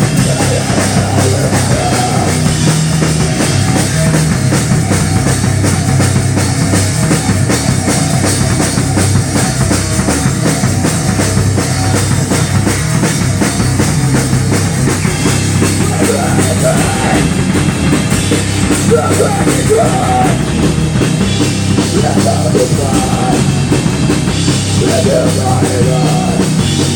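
Live rock band playing loud and steady: electric guitar, bass guitar and a drum kit.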